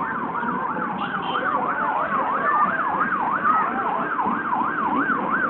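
Vehicle siren in fast yelp mode, its pitch rising and falling about three times a second, with a slower wail overlapping it in the middle. It cuts off near the end, over a steady hubbub of street noise.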